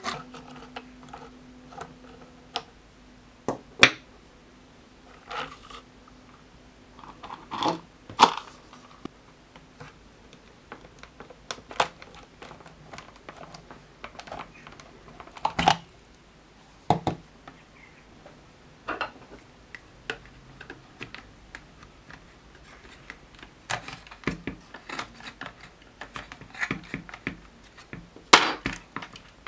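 Irregular plastic clicks, taps and short scrapes as the dust-caked shroud is worked loose and pulled out of a Dyson DC62 cordless vacuum's cyclone assembly by hand.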